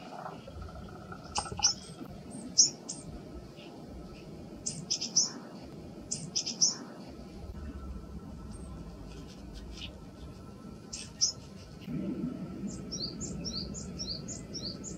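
Small wild songbirds giving short, high, sharp chirping calls in scattered clusters. Near the end comes a quick run of about eight short notes, each falling in pitch.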